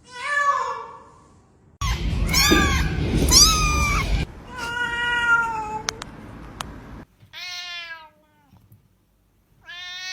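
Domestic cats meowing: about six separate drawn-out meows, several bending up and then falling in pitch, with the background noise changing abruptly between them.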